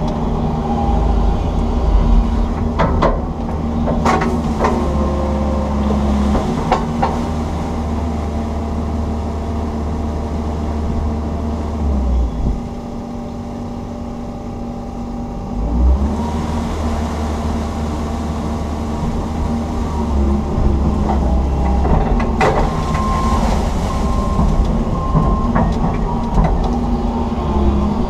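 Komatsu PC160 excavator's diesel engine and hydraulics running, heard from inside the cab as it digs, with a strong low rumble and a few knocks. The rumble drops off for a few seconds about halfway through, then comes back.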